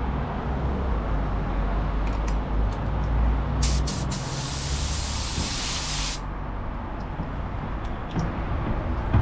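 Clear coat being sprayed: one hiss of spray lasting about two and a half seconds, starting a little after three and a half seconds in, over a steady low hum.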